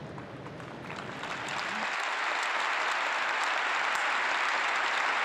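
Large crowd in an arena getting to its feet and breaking into applause. A low rustle of people rising gives way, about a second in, to clapping that swells over the next second and then holds steady.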